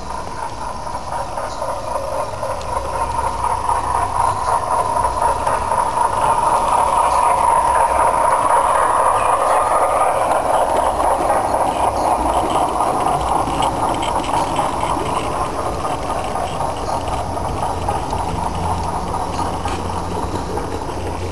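Garden-scale model freight train rolling past on its track, a steady rattling rumble of wagon wheels on the rails. It grows louder over the first several seconds, peaks as the boxcars go by, and eases off slowly toward the end as the caboose passes.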